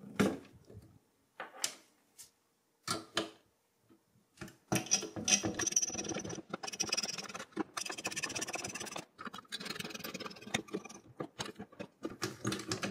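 Screwdriver turning the mounting screws of a CPU cooler on a motherboard: a few separate knocks and clicks of handling, then about five seconds in a long, scratchy, fast-clicking rasp of the screws being worked loose.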